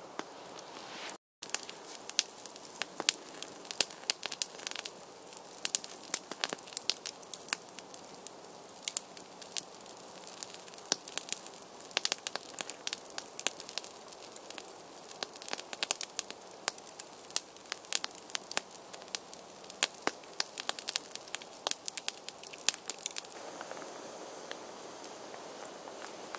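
Open wood campfire crackling, with frequent irregular sharp pops. The sound cuts out briefly about a second in, and the crackling thins out near the end.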